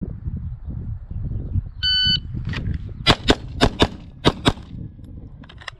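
Electronic shot-timer start beep, then six loud gunshots in three quick pairs. Fainter shots come just after the beep and near the end.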